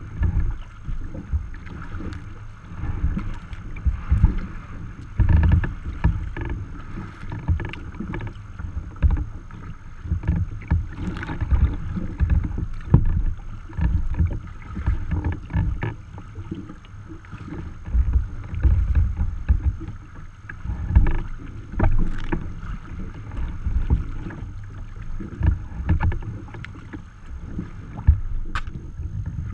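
Wind buffeting the microphone in uneven gusts, with choppy water slapping and splashing against a sea kayak's hull.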